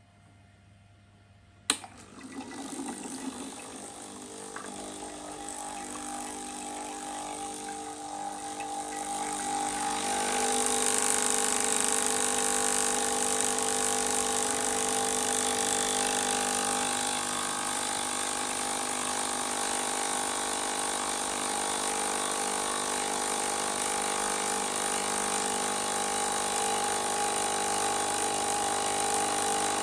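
Breville Oracle Touch (BES990) espresso machine pulling a double shot: a click about two seconds in, then the pump running with a steady hum of several tones, growing louder until about ten seconds in and then holding steady.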